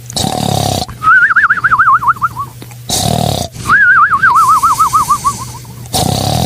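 A dog barking and howling: a short rough bark, then a high, fast-wavering whine that slides downward, the pattern repeating about every three seconds.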